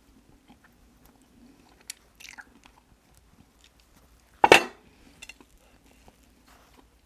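Close-miked eating: soft chewing and mouth clicks, with one loud crunchy bite about four and a half seconds in.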